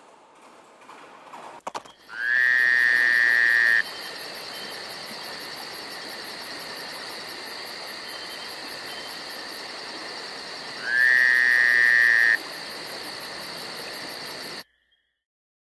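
A steady high, insect-like drone with a fast pulsing tick. Twice a loud whistle-like tone rises briefly and then holds for about a second and a half. All of it cuts off suddenly near the end.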